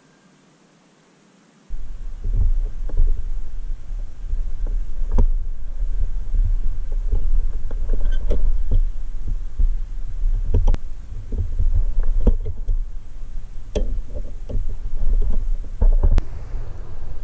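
Needle-nose pliers clicking and tapping as a small steel E-clip is worked onto the shaft of a pressed-steel Tonka toy forklift, with irregular light metal clicks over a steady low rumble. The first second and a half is very quiet before the rumble comes in.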